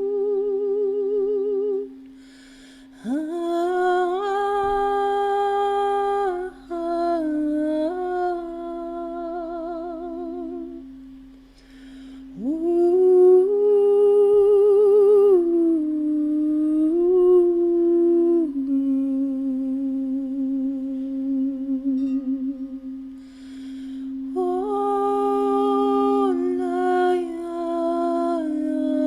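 A woman's wordless vocal toning: long held notes with a wavering vibrato, each phrase opening with a rising swoop and broken by two short pauses for breath. A steady low drone tone sounds underneath.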